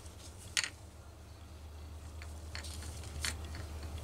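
A few light clicks and taps from handling, with one sharper click about half a second in, over a steady low hum.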